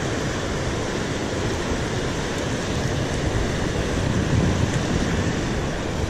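Steady rush of a fast river current swirling past a concrete ledge, an even wash of water noise without breaks.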